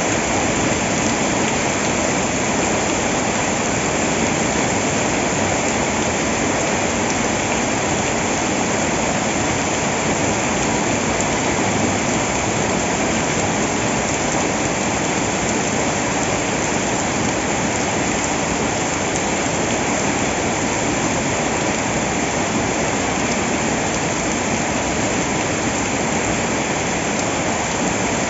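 Loud, steady rush of water that never lets up, with no distinct drops or splashes standing out.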